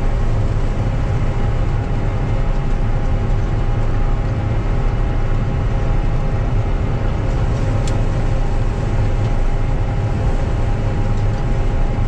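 John Deere 9500 combine running steadily under load while harvesting soybeans, heard from inside the cab: an even engine and threshing drone with a faint steady machine whine over it.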